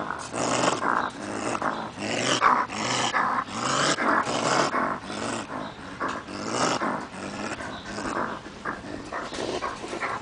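Raccoon trapped in a wire cage trap growling over and over, in harsh bursts about two a second.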